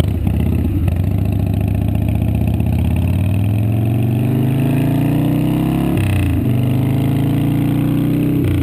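Harley-Davidson V-twin motorcycle engine accelerating hard: the pitch climbs for a few seconds, drops sharply about six seconds in as the rider shifts up a gear, then climbs again, with another upshift near the end.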